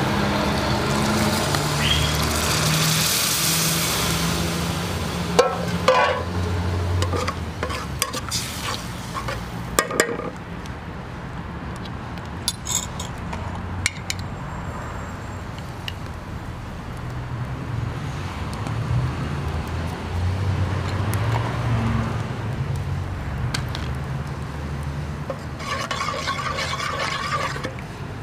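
Water poured into a hot aluminium pot of fried herbs, hissing and sizzling for the first few seconds. Then a metal spoon clinks against jars and the pot as ingredients are added and stirred, over a low steady rumble.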